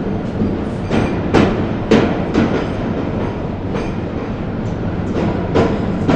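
A train running on the rails: a steady rumble broken by irregular clunks of the wheels over the rail joints.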